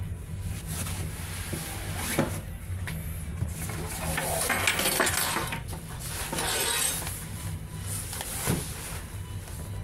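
Handling noise: a nylon bag rustling under a hand and straps and buckles clicking as they are moved, loudest about halfway through, with a few sharp clicks, over a steady low hum.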